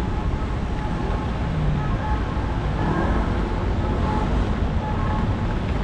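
Wind buffeting the microphone with a steady low rumble, over street traffic.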